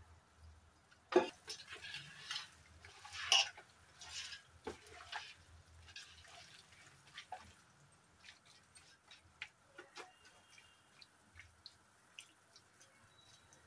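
A hand mixing wet marinated chicken in an aluminium pot: a sharp knock about a second in, then wet squelching and scraping, fading to many small clicks.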